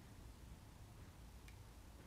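Near silence: room tone with a low steady hum and hiss, and one faint tick about one and a half seconds in.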